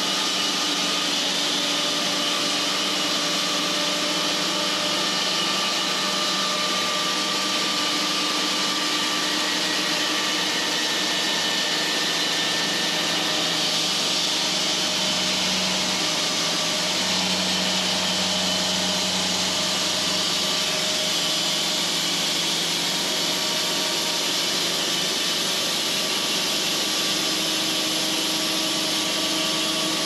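Cook's AC-36 thin-kerf band sawmill running steadily, its engine held at a constant speed while the band blade, a little dull, cuts lengthwise through a large red oak log.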